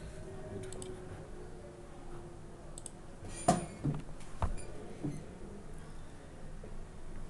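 A few scattered clicks of a computer keyboard and mouse as a time value is typed in and a tab is clicked. The loudest click comes about three and a half seconds in, over faint steady room noise.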